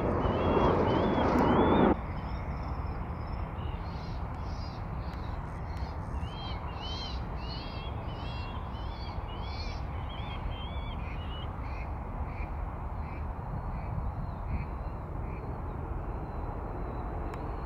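Jet airliner engine noise for about two seconds, cut off suddenly, then a low steady rumble. Over it a small bird calls in a long series of short rising-and-falling whistled notes, about two a second.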